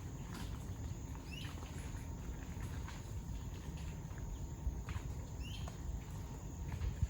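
Outdoor ranch ambience: a steady low rumble, with two short rising bird chirps, one about a second and a half in and another about five and a half seconds in.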